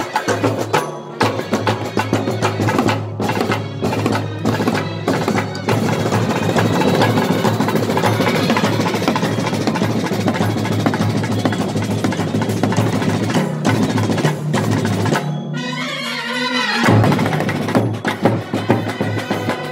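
Kerala brass band (bandset) playing, led by rapid snare drum beating with a bass drum under it and trumpets and euphonium playing along. The drumming breaks off for about a second and a half some fifteen seconds in, then starts again.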